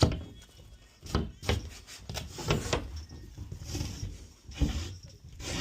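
A series of irregular knocks and thumps, the first and loudest right at the start, then a cluster about a second to three seconds in and another near the end.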